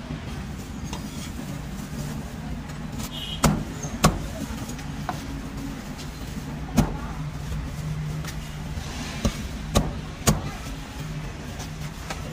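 Cleaver chopping roast duck on a thick wooden chopping block: sharp knocks at uneven intervals, over a steady low hum of street traffic.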